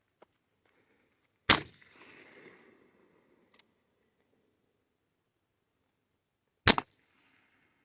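Two shots from a .36 caliber Uberti reproduction of the 1836 Colt Paterson black-powder percussion revolver, about five seconds apart, each a sharp report with a short tail after it. A faint click falls between them, and a thin steady high tone runs underneath.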